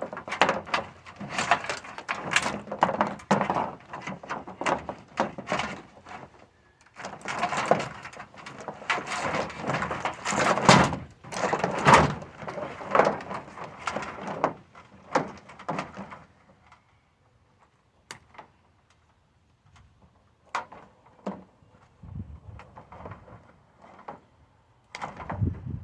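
Scrap metal being taken apart by hand: dense, irregular scraping, clicking and clanking of metal parts for about sixteen seconds, then only scattered single clicks and knocks.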